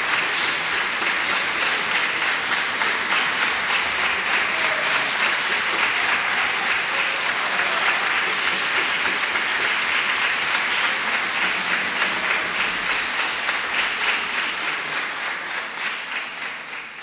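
Audience applauding steadily, the clapping fading away over the last few seconds.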